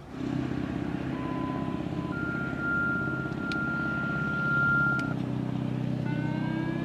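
Radio activation tones for an outdoor warning siren, heard over a low hum: a steady tone for about a second, then a higher tone held about three seconds. About a second before the end, the ASC Alertronic AL-4000 electronic siren starts a rising wail.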